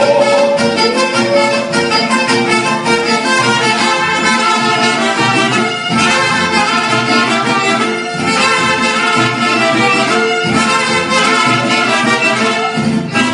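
Mariachi band playing an instrumental interlude, trumpets and violins carrying the melody together.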